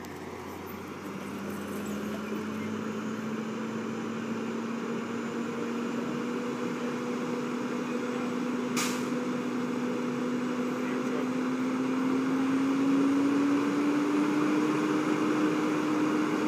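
Steady engine drone that slowly rises in pitch and grows louder, over a rushing hiss. One sharp click about nine seconds in.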